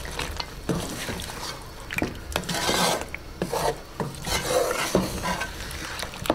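Wooden spatula stirring chicken pieces and yogurt in a metal karahi, in repeated scraping strokes with a few knocks against the pan.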